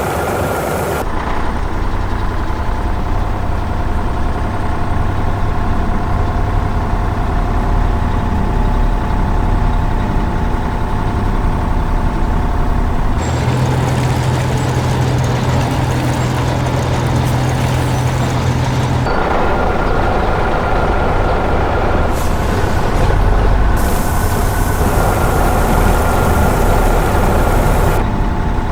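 Heavy construction-vehicle engines running steadily, with a deep steady drone for several seconds in the middle and abrupt changes from one engine sound to another.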